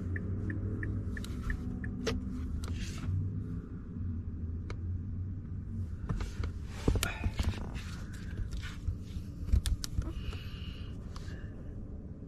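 A low steady hum, with scattered clicks and knocks from handling the equipment, the sharpest about seven and nine and a half seconds in.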